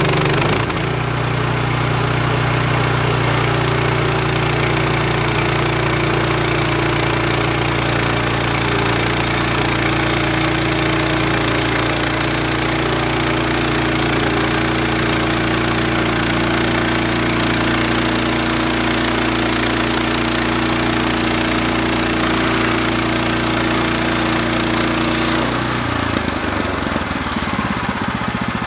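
Portable sawmill's gas engine running steadily under load as the mill makes a cut through the log; a little before the end the engine note changes and drops.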